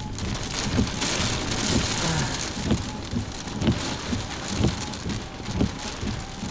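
Rain pattering steadily on the chase vehicle, with a low thump about once a second.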